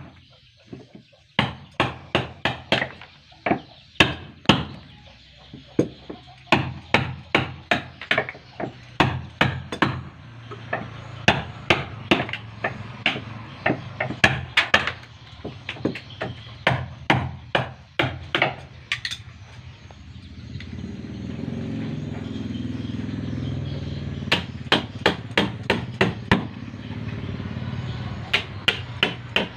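Hammer blows in runs of quick, even strikes, about three a second, during wooden boat building. A steady low hum rises about twenty seconds in, between the runs.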